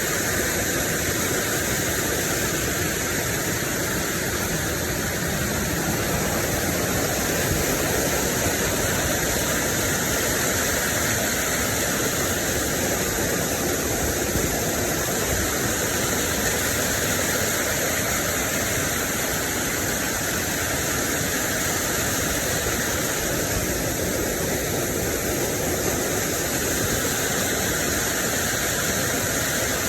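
Waterfall rushing, a loud steady noise of falling water.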